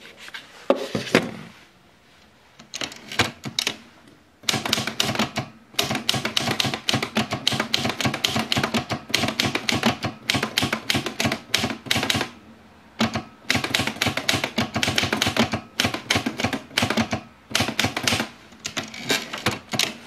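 Freshly serviced Olivetti Lettera 32 manual typewriter being typed on. A few separate keystrokes in the first seconds, then a fast run of key strikes from about four seconds in, broken by two short pauses.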